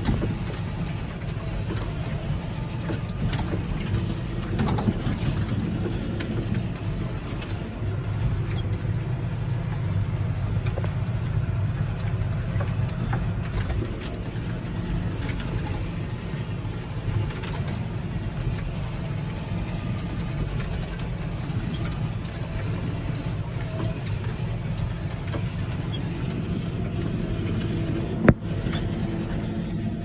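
John Deere 6215R tractor's six-cylinder diesel engine running steadily under load while ploughing, heard from inside the cab as a low drone. A single sharp click comes near the end.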